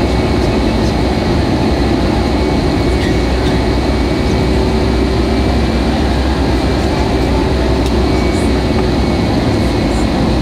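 Steady jet engine and airflow noise heard inside the cabin of an Airbus A320-family airliner in flight, with a faint steady hum under it.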